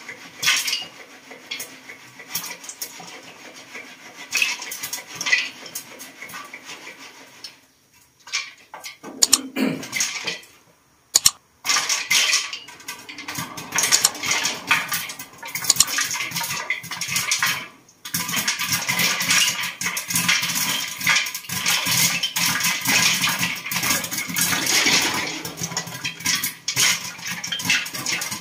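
Popcorn kernels popping and rattling inside a covered aluminium pot as it is shaken over a gas burner: a dense, loud clatter of pops and metal rattle with a few brief lulls. The shaking keeps the popping kernels from burning.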